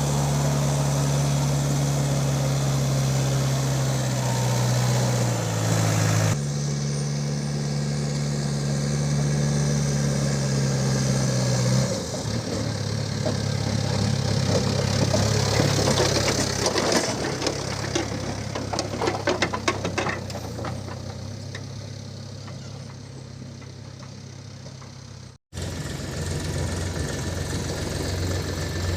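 Heavy diesel engine of a JCB 3DX backhoe loader running at a steady speed while it digs and loads mud, with a stretch of rapid clattering about two-thirds of the way through. The engine note changes abruptly a few times and drops out briefly near the end.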